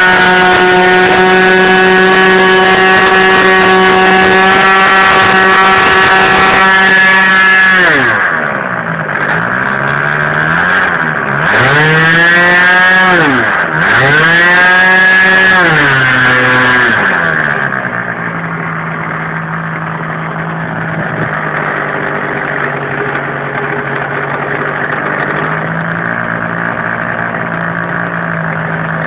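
Irvine ABC MKIV .40 two-stroke glow engine being run in: it runs steadily at high speed, is throttled back about eight seconds in, revs up and falls away twice, then settles to a steady low-speed run.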